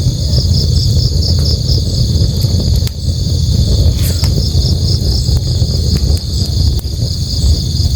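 Crickets chirping in a steady pulsing trill over the continuous low rush of a river, with a few sharp crackles from a campfire.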